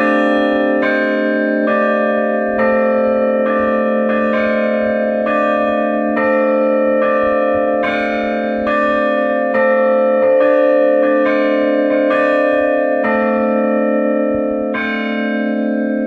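Several church bells in a belfry rung together in a steady rhythm: a new stroke comes a little more often than once a second, over the long ring of the lower bells.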